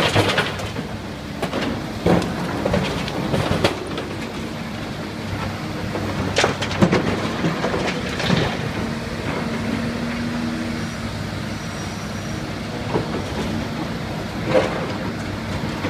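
LiuGong 925D excavator's diesel engine running steadily, with a string of sharp metallic clanks and knocks from the machine at work.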